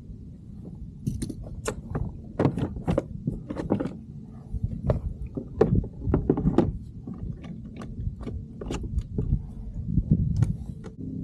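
A run of irregular knocks and clatters, several a second at times, over a low steady rumble.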